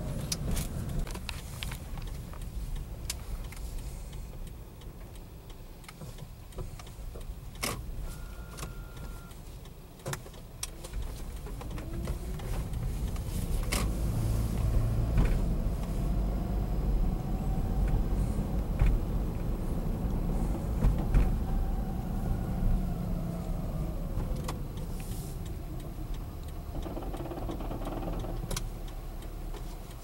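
Inside a 2011 Toyota Prius on the move, its 1.8-litre four-cylinder engine misfiring on cylinder 1 with a knocking rattle. A low drivetrain rumble grows louder about halfway through, along with a whine that rises and then falls.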